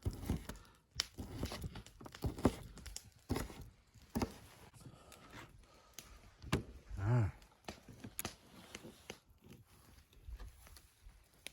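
Knife chopping andouille sausage on a cutting board: a run of irregular sharp knocks with a dull thud under each. A short voiced hum about seven seconds in.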